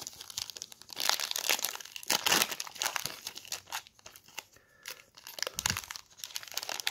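Foil wrapper of a 2021 Panini Prizm WNBA trading-card pack crinkling as it is handled in the hands, in irregular crackles that are busiest in the first few seconds.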